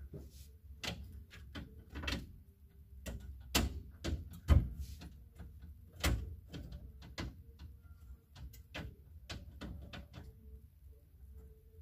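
Clothes hangers clicking and knocking against wall display rails as garments are hung and rearranged: a string of irregular sharp clicks, the loudest about four and a half seconds in.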